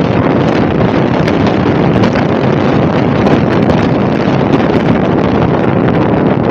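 Wind buffeting the microphone: a loud, steady rushing noise with faint scattered ticks.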